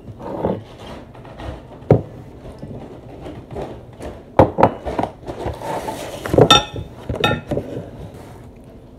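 Kitchen ware being handled and set down: a glass measuring cup and a plastic mixing tub give scattered knocks and clinks, the loudest two, about six and a half and seven seconds in, ringing like glass.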